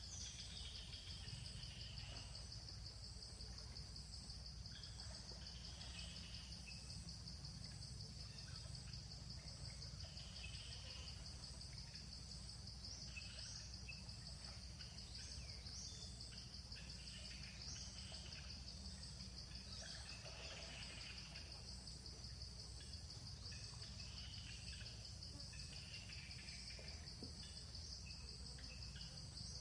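Faint, steady insect chorus: a high, finely pulsing trill of crickets or similar insects, with a few short bird chirps here and there over a low background rumble.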